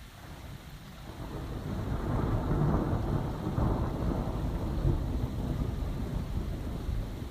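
Thunder rumbling over steady rain: a low roll that builds about a second in, is loudest through the middle, and eases off toward the end.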